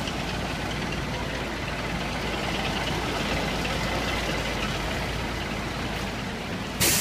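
Tanker truck's diesel engine running as the truck drives slowly through floodwater, with a short, loud hiss of its air brakes near the end.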